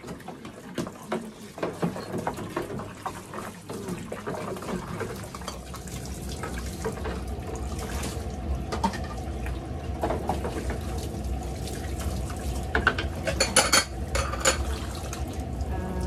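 Tap water running into a sink and a basin of soapy water while dishes are scrubbed and handled, with small knocks and clinks of crockery. A few sharper clinks of dishes knocking together come about three-quarters of the way through.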